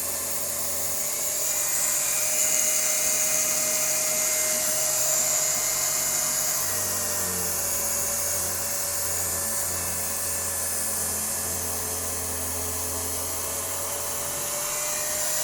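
Small Octa electric fabric-cutting machine running with a steady whine and hiss.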